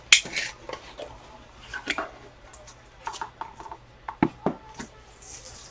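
Sports trading cards being handled: scattered light clicks and rustles of cards being picked up, slid and set down, with a sharper click right at the start and two more a little past four seconds in.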